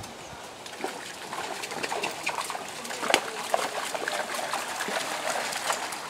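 A miniature horse's hooves and cart wheels splashing and sloshing through a shallow creek. Irregular splashes build from about a second in, with the loudest one around three seconds in.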